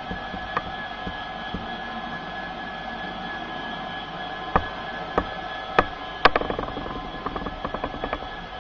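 OO gauge DCC sound-fitted diesel locomotive model playing a steady diesel engine drone as it hauls its wagons, with a few sharp clicks from about halfway and a quick run of lighter clicks near the end as the wheels cross the rail joints and points.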